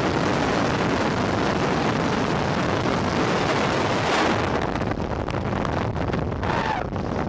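Freefall wind rushing hard over the camera microphone during a tandem skydive. About four seconds in the parachute opens: there is a brief swell, and the rush then eases into lighter, gustier buffeting.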